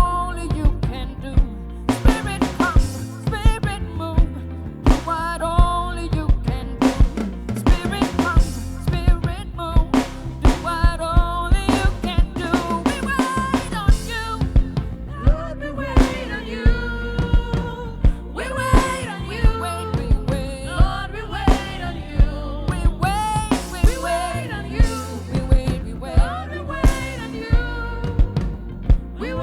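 Worship band music: a drum kit keeps a steady beat under a wavering melody line.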